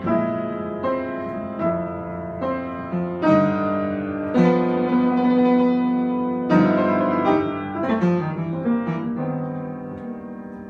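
Solo piano playing a slow ballad: chords struck about once a second and left to ring, with a quick falling run of notes about eight seconds in, and a final chord dying away softer near the end.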